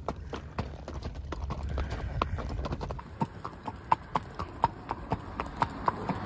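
Horse's hooves clopping at a steady walking rhythm under a rider, first duller on rocky desert ground, then crisper, sharper clicks on concrete pavement from about halfway in.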